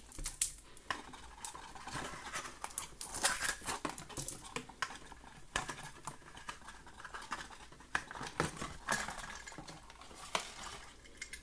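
Cardboard box packaging and a clear plastic sheet being handled and pulled apart: irregular rustling and scraping with sharp light clicks.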